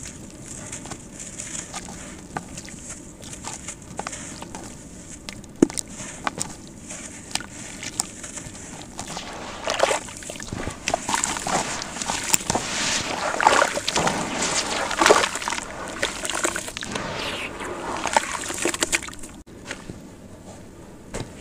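Gritty sand cement crumbling and falling into water, with crackling grit and sloshing. It grows busier and louder through the middle for several seconds.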